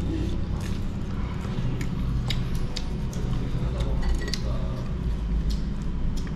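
Scattered light clicks and clinks of utensils and tableware during a meal, over a steady low background hum.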